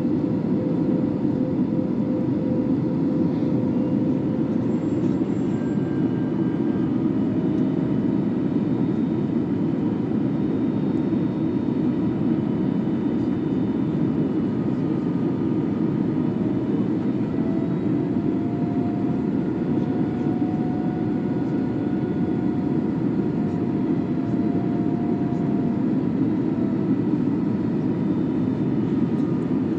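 Steady noise inside an Airbus A321neo on approach, a deep rush of airflow and engine hum, with faint engine tones that drift slightly up and down in pitch midway through.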